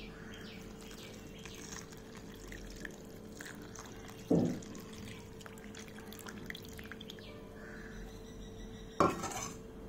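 Coconut milk poured from a steel vessel into a steel bowl, faint splashing and dripping over a steady faint hum. A soft thump comes about four seconds in, and a brief knock near the end.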